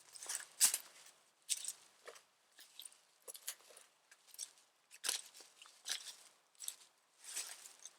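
Footsteps crunching on the ground in an uneven walking rhythm, about one step a second.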